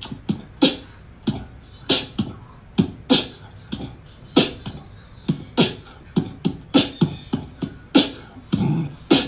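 Background music: a sparse, beatbox-style percussion beat, an uneven run of sharp hits about one to two a second, each a low thump topped with a hiss.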